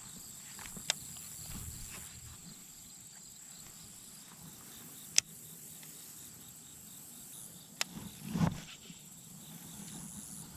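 Insects trilling steadily at a high pitch outdoors, with a few sharp clicks about a second, five seconds and eight seconds in, and a short thud just after the last click.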